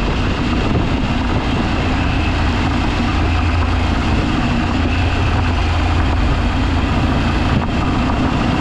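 An off-road vehicle driving, its engine running steadily under a dense, even rumble.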